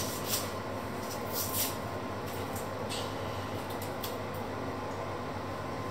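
Small kitchen knife scraping and nicking the papery skin of an onion as it is peeled by hand: a few short, crisp scratches, the loudest at the very start, over a steady low hum.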